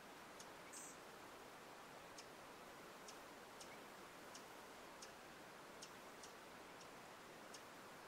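Faint, short high-pitched chip notes from a perched rufous-type hummingbird, repeated at uneven spacing about once or twice a second, with one slightly longer high note about a second in, over a steady low hiss.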